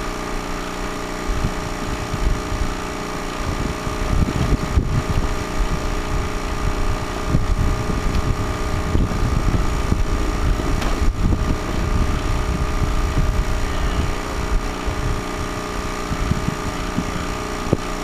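Snowmobile engine running at a steady speed, with wind buffeting the microphone.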